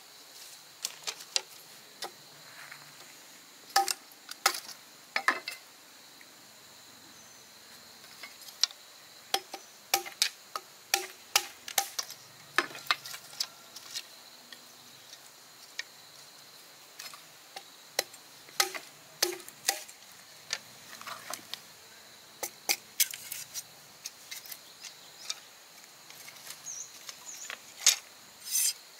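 Irregular sharp knocks and clicks, sometimes several a second, sometimes with gaps of a second or two, over a faint steady high hiss.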